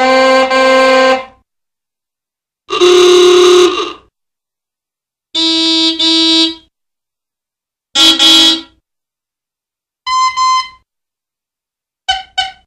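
Old car horns honking in six separate bursts with silent gaps between them. Most are double blasts; one near three seconds in is a single longer honk, and the last is two very short toots. The pitch changes from one honk to the next and is higher in the later ones.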